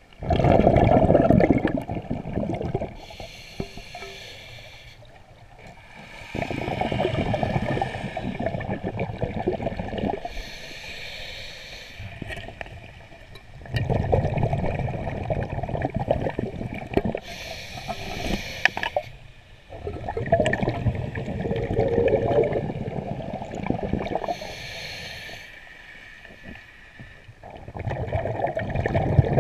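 Scuba diver breathing through a regulator underwater, a breath every six to seven seconds: a short hiss on each inhale, then a long bubbling rumble as the exhaled air escapes.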